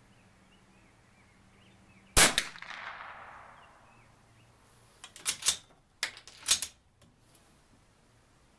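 A single shot from a Bergara B14R bolt-action .22 LR rifle about two seconds in, ringing out and fading over about a second. About three seconds later come two quick clusters of metallic clicks as the bolt is worked to eject the spent case and chamber the next round.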